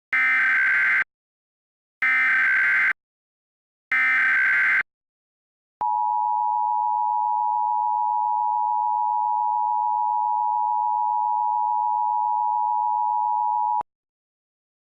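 Emergency Alert System broadcast tones: three one-second bursts of the SAME digital header data, then the two-tone EAS attention signal held steady for about eight seconds and cut off sharply.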